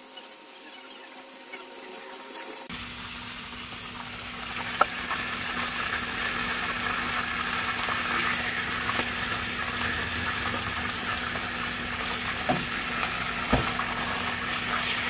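Marinated mutton shanks sizzling as they shallow-fry in hot oil in a nonstick pan, with a few light clicks of tongs against the shanks and pan as they are turned.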